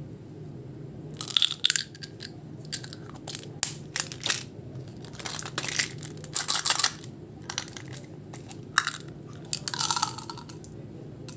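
Small hard candies clicking and rattling against a clear plastic baby-bottle-shaped candy container and spilling into a palm, in irregular bursts of short clicks, the last burst a longer clatter near the end.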